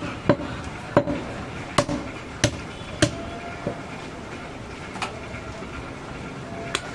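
Heavy butcher's knife chopping mutton on a wooden log chopping block: a run of sharp chops about half a second to a second apart, a pause of a second or so, then a single chop near the end.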